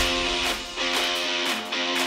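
Background music with a guitar playing sustained chords.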